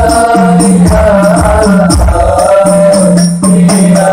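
A man's voice sings a devotional Arabic maulid hymn in a melismatic style. Hand-beaten frame drums with jingles keep a steady rhythm underneath.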